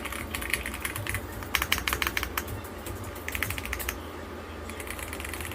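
Typing on an RK Royal Kludge R65 gasket-mount mechanical keyboard with PBT keycaps: quick runs of keystroke clicks that come in bursts, with a short lull just past the middle.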